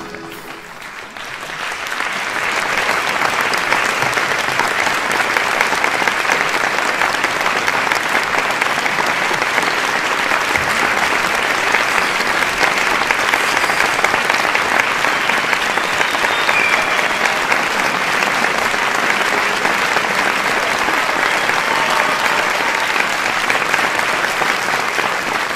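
Audience applauding, swelling in over the first couple of seconds, holding steady, then tailing off near the end.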